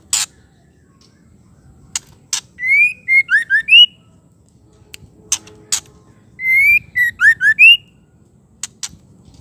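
White-rumped shama calling: two short phrases of quick, rising whistled notes about four seconds apart, with sharp single clicks in between. The title gives it as the female's call.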